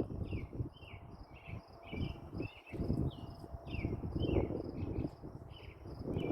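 Crickets chirping in a steady, even rhythm, about three high chirps a second, with a second, lower repeating chirp among them, over an uneven low rumble.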